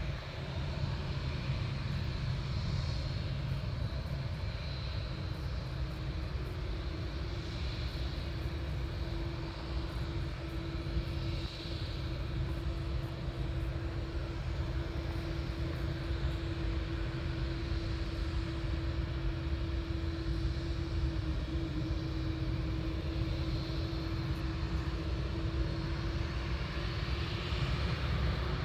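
Boeing 787 airliner's jet engines running at low thrust as it rolls slowly along the runway: a steady low rumble with a steady droning tone that comes in about six seconds in.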